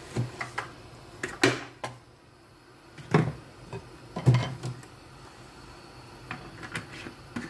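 Scattered knocks and clunks of cookware and containers being handled and set down by the stove, with two louder thumps about three and four seconds in.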